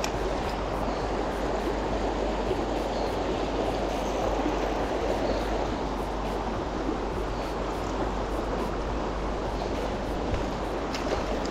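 Shallow river water running over rocks: a steady rush with no breaks.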